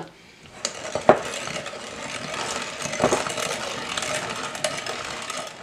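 Red plastic hand-cranked food mill grinding cooked strawberries: a continuous wet scraping as the blade sweeps the pulp over the perforated disc, with a couple of sharper clicks from the mechanism. The strawberries are being puréed while the seeds are held back.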